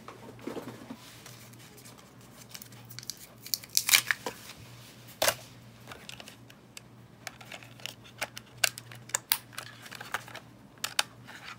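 Irregular plastic clicks, knocks and rattles of small toy film cameras being handled while the AAA flash battery is swapped, the loudest knocks about four and five seconds in, over a steady low hum.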